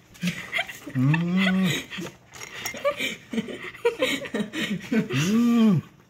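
A man's long closed-mouth "mmm" of relish while chewing cucumber slices, the pitch rising and then falling, once about a second in and again near the end, with short muffled mouth-full vocal sounds between.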